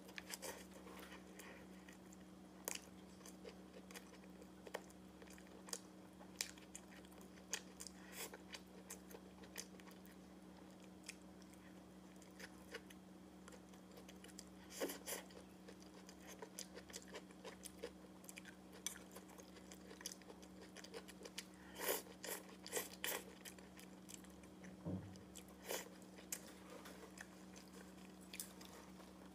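Close-up eating sounds: chewing with many short wet mouth clicks and smacks, some of them crunchy, over a faint steady low hum.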